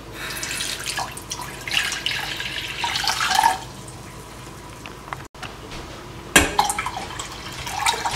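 Water poured from a jug into a stainless steel saucepan, splashing on the metal. The pouring comes in two spells, the second starting with a sharp knock.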